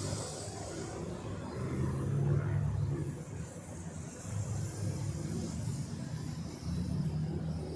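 Low, steady rumble of road traffic heard from high above the street, swelling around two seconds in and again near the end.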